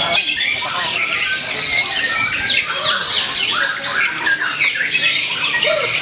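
White-rumped shama singing a rapid, unbroken stream of varied whistles and chattering phrases, mixed with the overlapping song of other caged songbirds.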